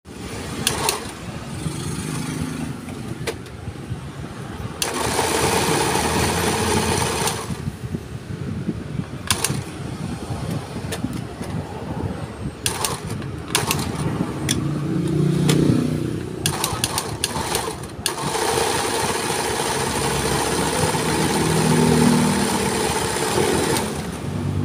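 Electric domestic sewing machine running in stop-start bursts as it sews zigzag stitches into cloth, with sharp clicks between the runs and one long continuous run near the end.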